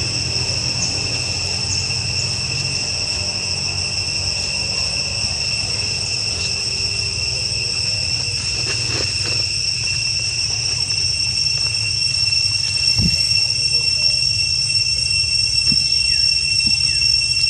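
Insects droning: a steady, unbroken high-pitched whine at two fixed pitches, over a low background rumble, with a single short thump about two-thirds of the way through.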